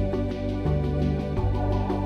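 Background music: a calm synth track with sustained chords that change about every two-thirds of a second over a steady beat.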